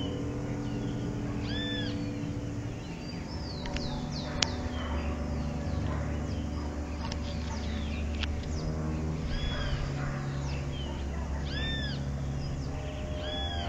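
Birds chirping and calling: many small high chirps, and a short rising-and-falling call repeated four times. Under them runs a low hum of held tones that shift in pitch, with a couple of sharp clicks.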